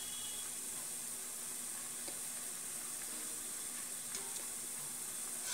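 Oil sizzling steadily as gulab jamun dough balls deep-fry, with a couple of faint clicks about two and four seconds in.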